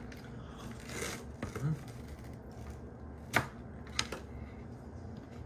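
Metal spoons scraping and tapping in paper ice-cream pints, with a few light clicks and two sharper clicks, the loudest a little past three seconds and another at about four seconds.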